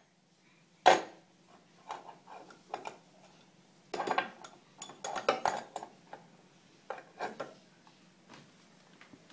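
Irregular knocks and clatter of small hard objects being handled in a wooden compartment box, with a loud knock about a second in and a quick run of clattering knocks around four to six seconds.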